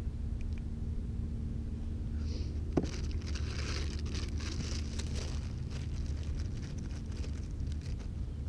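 A small clear plastic bag crinkling in the hands from about two seconds in, with a single sharp click near three seconds, over a steady low rumble.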